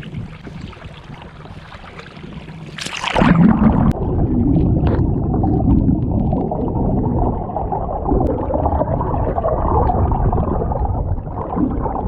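Water gurgling and sloshing close to the microphone on a pedal kayak. It starts suddenly about three seconds in, after a quieter stretch of low steady hum and water noise, and stays loud.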